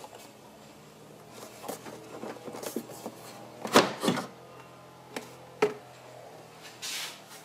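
Plastic air intake duct being handled and worked loose in the engine bay: light taps and rattles, two louder knocks about halfway, then two sharp clicks and a short scrape near the end.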